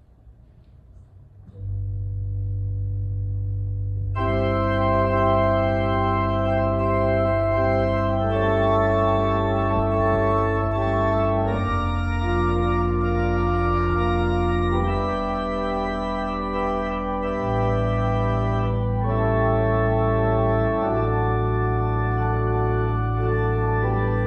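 Organ playing slow, sustained chords over long-held low bass notes, with the chords changing every few seconds. It comes in about two seconds in with a low bass note and one upper note, and the fuller chords enter about two seconds later.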